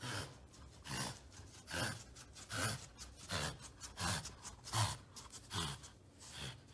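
French bulldog breathing noisily through its nose with a toy held in its mouth: short, rough breaths about one every 0.8 seconds, nine in all, each falling in pitch.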